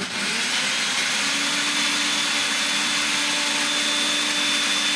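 Countertop glass-jar blender running steadily at speed, pureeing peach slices with water into juice; a steady low hum note settles in about a second in.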